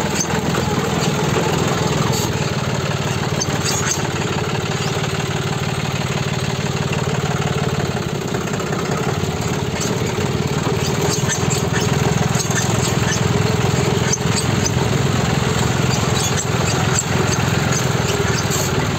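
John Deere 5310 tractor's three-cylinder diesel engine running steadily while driving, heard from the driver's seat.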